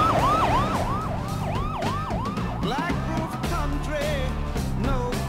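Police car siren on fast yelp, a rising-and-falling wail repeating about two and a half times a second, fading after about three seconds, with music underneath.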